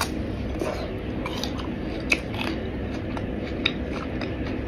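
A person chewing iced fruit close to the microphone: wet chewing with scattered short, crisp mouth clicks and crunches, over a steady low hum.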